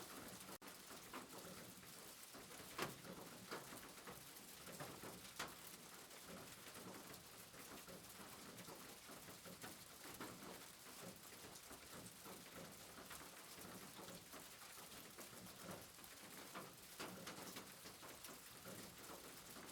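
Soft, steady rain falling, an even patter with a few louder drips now and then.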